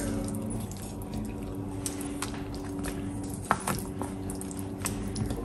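Pork-rib and daikon broth simmering in a stainless steel pot on an induction hob, with a steady hum under it. A few light clicks of chopsticks against the pot as whole prawns are put into the broth.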